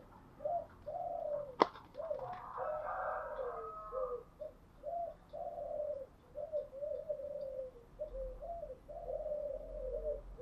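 Spotted dove cooing: a long run of short, low coo notes repeated one after another. A single sharp click comes about one and a half seconds in.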